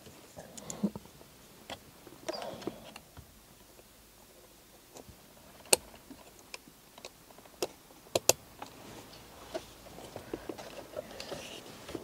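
Scattered sharp clicks and light knocks from handling a steering-wheel airbag module and its wiring plugs at the wheel hub. The loudest click comes a little before the middle, and a quick pair of clicks follows about two and a half seconds later.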